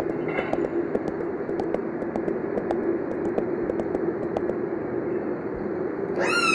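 A steady low rumble, like a running machine, with scattered sharp clicks over it. Near the end a high pitched cry rises quickly and then falls away.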